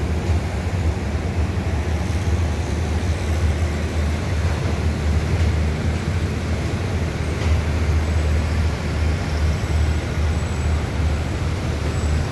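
Diesel train engines idling at the platform: a steady low rumble that holds even throughout.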